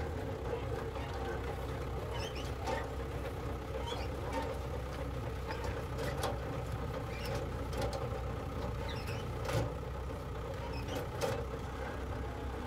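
Tractor engine running steadily while driving a PTO-powered yam mound-making implement, with scattered short clicks over the steady hum.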